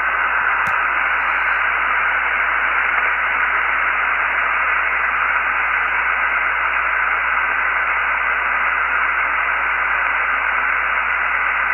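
Realistic DX-200 shortwave receiver's speaker giving steady static hiss on the 80-metre band, with no voice in the gap between single-sideband transmissions. A single brief click comes under a second in.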